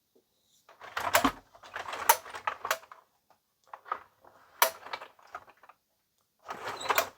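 Hard plastic clicks and clatter of an LJN Mutant Fistpounder toy vehicle being handled, in three bunches of rattling clicks.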